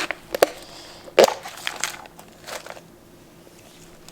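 A handful of sharp crackles and crunches, the loudest about a second in: Oreo cookies being taken out and bitten into.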